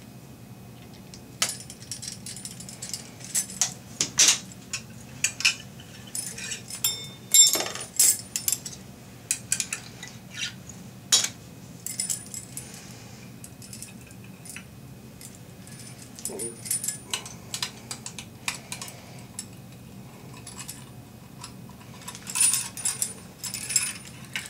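Metal clinks and rattles of pliers and a sink pop-up drain's perforated clevis strap and rod being handled, in irregular clusters of sharp clicks.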